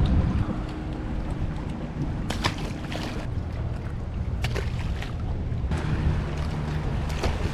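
Wind buffeting the microphone over a low rumble on a boat, with a few sharp clicks or knocks scattered through it.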